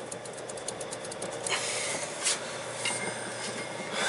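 Metal clicking and knocking as a PTO driveline yoke is worked onto a Versatile 260 tractor's PTO shaft. A quick run of clicks is followed by two sharp knocks and a brief squeak, over a steady background noise.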